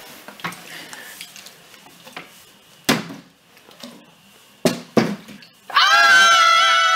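A plastic water bottle knocks down onto a mat three times, twice in quick succession about five seconds in, as it is tossed and lands upright. Right after, a child lets out a long, loud high-pitched scream of excitement.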